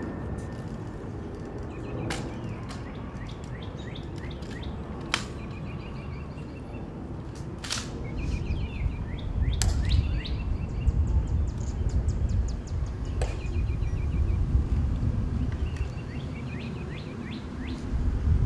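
Birds chirping and singing in short repeated phrases, with a few sharp clicks of the guards' rifle drill spaced a few seconds apart. From about halfway through, wind rumbles on the microphone.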